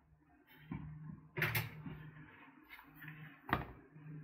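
Faint handling sounds of a stainless-steel multitool and its pouch: three short clacks, about a second in, halfway through and near the end, with some rustling between them, over a low steady hum.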